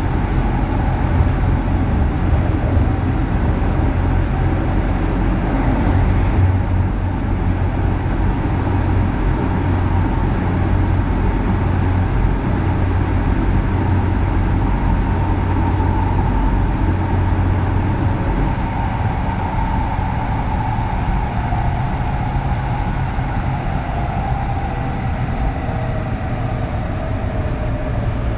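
Interior running sound of a Kintetsu 3200 series motor car: steady low rumble of the train under way, with the whine of its early Mitsubishi GTO VVVF inverter and traction motors. In the last several seconds the whine falls steadily in pitch as the train slows.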